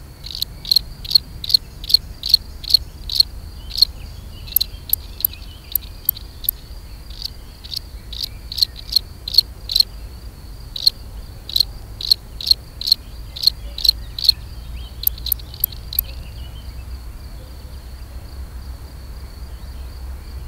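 Male European field cricket (Gryllus campestris) singing its mating song: loud, high-pitched chirps repeated about two and a half times a second, with a couple of short breaks, stopping about three-quarters of the way through. A fainter continuous trill at the same pitch goes on underneath throughout.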